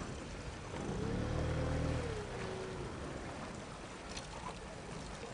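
Steady rush of river water around a drifting boat. About a second in, a low motor hum joins it for a couple of seconds; its pitch rises slightly, then slides down and fades.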